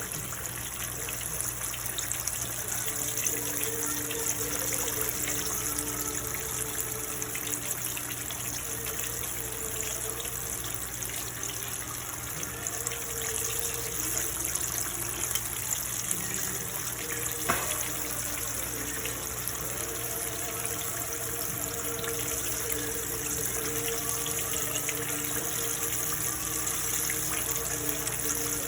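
Chicken deep-frying in hot oil: a steady sizzling hiss with many small pops, under background music.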